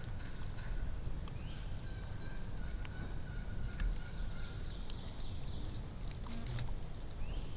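Birds calling in the woods: thin whistled notes, a couple of short rising calls and a patch of high chirps, over a steady low rumble and a few faint clicks.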